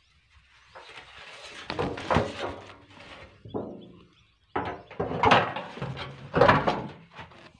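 A wooden beehive box and its galvanized metal sheet cover being handled: scraping, knocking and rattling of metal against wood, in two bouts with a short pause in the middle.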